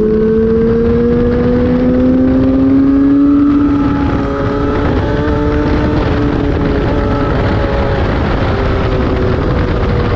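Racing motorcycle engine under hard throttle on track, its pitch climbing steadily for the first three and a half seconds, dipping at about four seconds and then running at a near-steady pitch. Wind rushes over the bike-mounted camera's microphone throughout.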